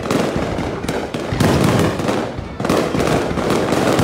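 Aerial fireworks display: a dense, unbroken barrage of shell bursts and crackling, bang after bang with no pause.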